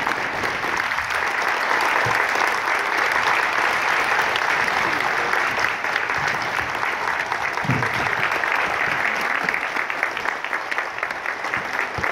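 A large audience applauding, dense steady clapping that thins into more distinct separate claps near the end.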